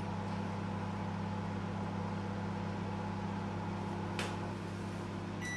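Microwave oven running with a steady low hum while it cooks a mug cookie. The hum cuts off near the end as the 40-second cooking time runs out.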